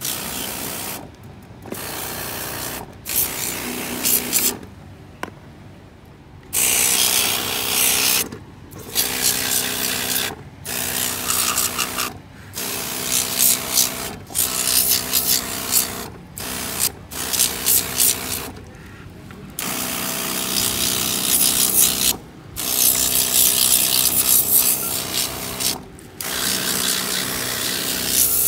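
Water spray gun hissing as it jets water onto the metal chassis and fenders of a 1/14-scale RC truck, switched on and off in about a dozen bursts of one to three seconds with short pauses between. A faint steady motor hum runs underneath.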